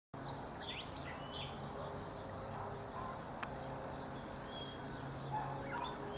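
Wild birds calling: scattered short chirps and high whistled notes, over a steady low hum, with one sharp click about halfway through.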